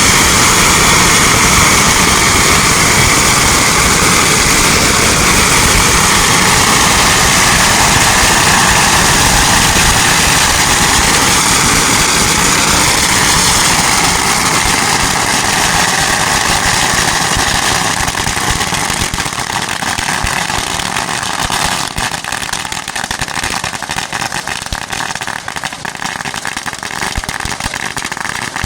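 Large bonfire burning with a loud, steady rushing noise, which eases a little and turns to denser crackling in the last ten seconds or so.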